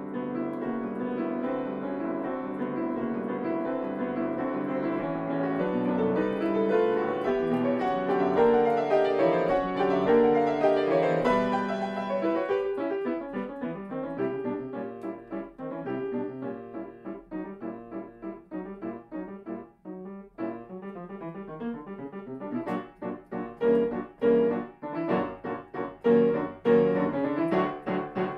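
Grand piano played solo: a dense, sustained passage for about the first twelve seconds, then lighter, detached notes building to loud, sharply struck chords near the end.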